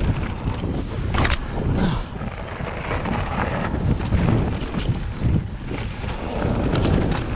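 Wind buffeting a camera microphone as a mountain bike rolls fast down a rocky gravel trail, with the tyres crunching over stones and the bike rattling and clicking over the bumps; one sharper knock about a second in.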